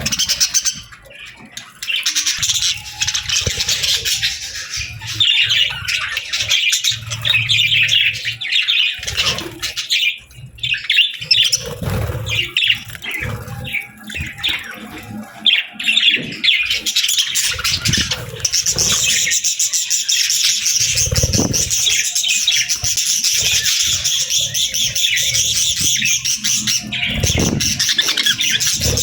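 Several budgerigars chirping and warbling in fast, continuous chatter, busier and steadier in the second half, with a few dull thumps.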